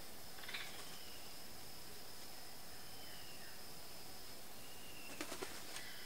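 Rainforest ambience: a steady high insect drone with faint falling bird whistles. One sharp click about half a second in, and a quick run of three or four sharp clicks near the end.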